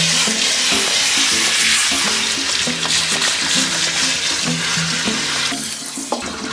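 Bath water from a shower hose running and splashing onto a dog's soapy coat and the tub floor, over background music with a stepping melody. The water sound drops away about five and a half seconds in.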